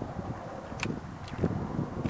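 Wind buffeting the microphone in an uneven low rumble, with two faint clicks from the sneaker sole pressing on the crushed die-cast model car.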